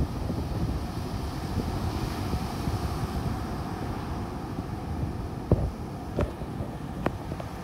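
Wind buffeting the microphone over the wash of surf breaking on a beach, with three sharp clicks in the last few seconds.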